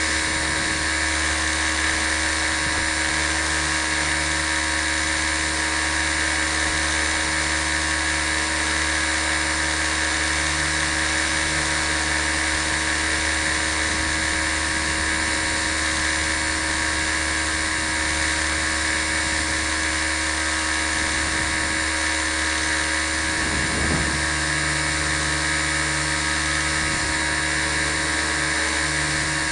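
Small RC helicopter in flight: its motor and rotor give a steady, many-toned whine, heard close up from a camera carried on the helicopter itself.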